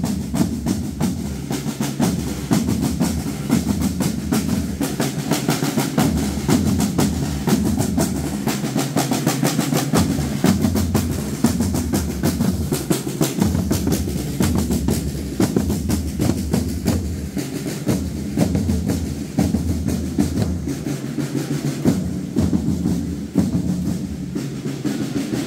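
Procession drums, snare drums among them, playing a continuous rolling march beat.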